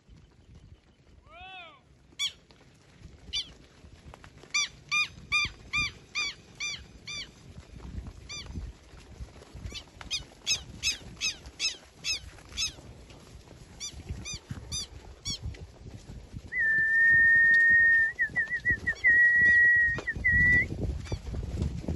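Herd of Nelore calves on the move, with a low shuffle of hooves under runs of short squeaky, bird-like calls. Near the end a loud steady whistle is held in two long notes.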